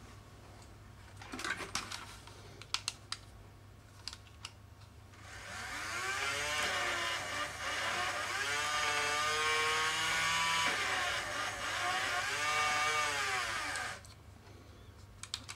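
Bachmann HO motorized turntable's motor and gearing whining as the bridge turns, starting about five seconds in, rising and falling in pitch twice, then stopping short. A few light clicks come before it.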